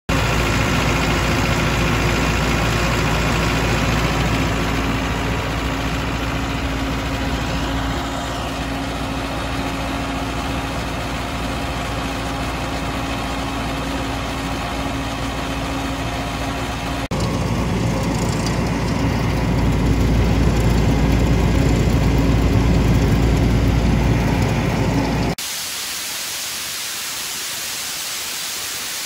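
Diesel engine of a Sullair 375DPQ portable air compressor running steadily at idle with its cooling fan, louder for a stretch past the middle. Near the end the engine sound stops abruptly and a steady hiss takes its place.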